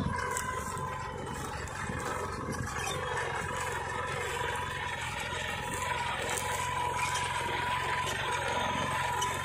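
Captain mini tractor's diesel engine running steadily under load, pulling a two-bottom plough through dry soil. A steady high whine sits over the engine note.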